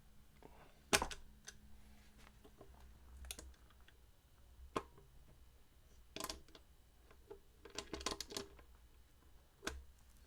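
Light, irregular clicks and taps of small metal guitar hardware and tools being handled, about a dozen sharp clicks spread unevenly, the loudest about a second in.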